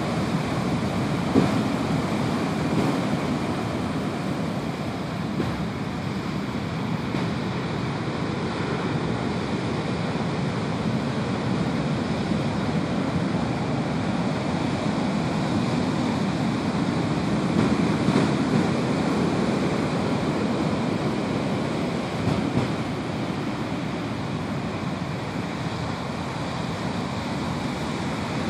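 Heavy ocean surf: large breaking waves and sheets of foam washing up over a sandy beach, making a steady rushing noise that swells and eases a little from wave to wave.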